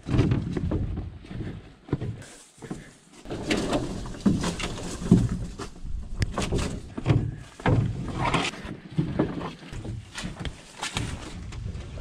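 Footsteps of a hiker walking a portage trail, an uneven series of thuds and crunches with some rustling.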